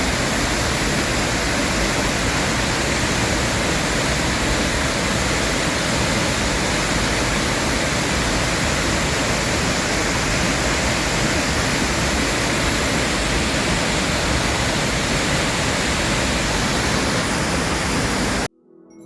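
Steady rush of a waterfall, an even roar of falling water that cuts off abruptly near the end.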